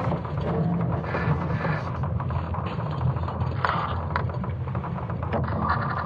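Sonification of Earth's magnetic field during the Laschamp excursion, built from ESA Swarm satellite data using creaking wood and rumbling stones. It is a steady, deep rumble with dense creaking and crackling clicks over it.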